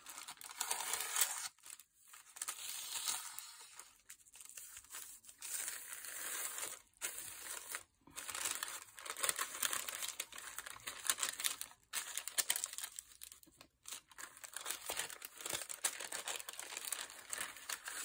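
Tissue paper crinkling and rustling as it is handled and trimmed, in irregular spells with short pauses between.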